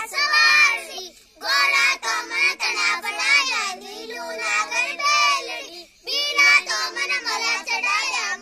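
Children singing a traditional festival folk song together, in sung phrases with short breaks about a second in and again about six seconds in.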